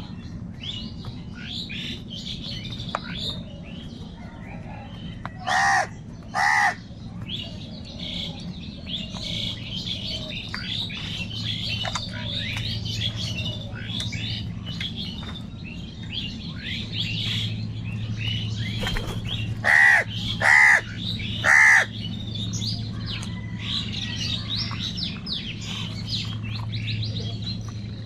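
Crows cawing: two loud caws about six seconds in and three more a little past the middle, over constant high chirping of many small birds and a steady low hum.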